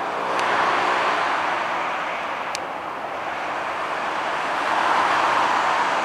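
ALCo RSD16 diesel-electric locomotive approaching slowly, its V16 diesel engine running under a steady noisy din that swells about a second in and again near the end. A couple of sharp metallic clicks.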